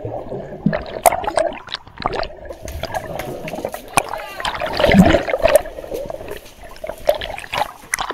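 Muffled gurgling and bubbling of lake water around a camera held underwater, with irregular small clicks. About two and a half seconds in, brighter splashing and lapping water joins in.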